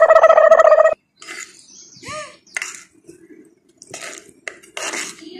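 A loud, steady high-pitched tone for about the first second, cutting off suddenly, followed by light clinks of a metal ladle against a steel plate of water as drops of hot jaggery syrup are tested for the hard-crack stage.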